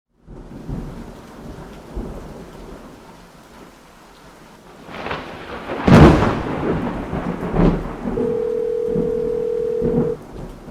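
Rain with rolling thunder and a loud thunderclap about six seconds in. Near the end a steady telephone ringing tone sounds for about two seconds as a call rings through.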